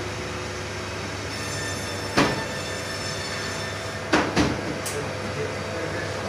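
Vacuum skin packing machine running with a steady hum of several tones, broken by sudden sharp mechanical noises about two seconds in and twice around four seconds in as it works through its sealing cycle.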